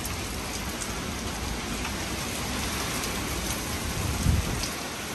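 Hurricane rain pouring steadily, with gusting wind rumbling on the microphone and a low thump about four seconds in.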